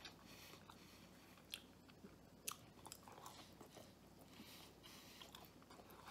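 Faint chewing of a soft, doughy pesto bread bite, with a few small wet mouth clicks.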